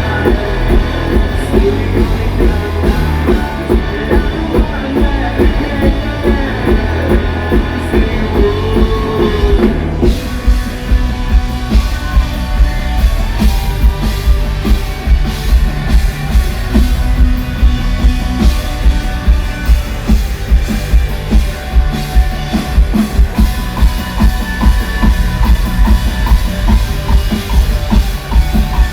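Live rock band playing an instrumental passage: drum kit, electric guitar and bass. About ten seconds in, the drums come forward with a steady, even beat and cymbals.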